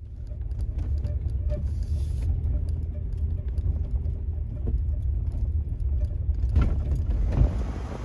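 A truck driving: a steady low rumble of engine and road noise, with wind noise rising about six and a half seconds in.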